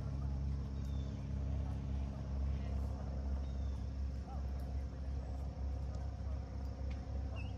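A steady low mechanical drone, like a distant engine running, with a few faint, short high chirps over it.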